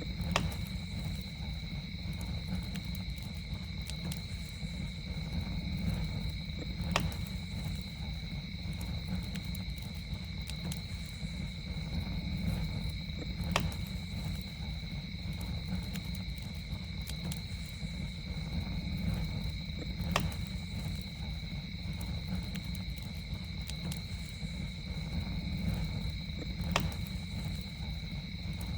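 Campfire crackling, with small faint crackles and a sharper pop about every six to seven seconds over a low rumble of the burning fire. A steady high insect drone holds throughout.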